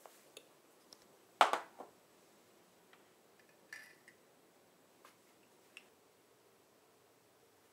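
Small glass essential-oil bottles and a tealight in a ceramic oil burner being handled: a few light clicks and taps, with one sharper knock and short rattle about a second and a half in.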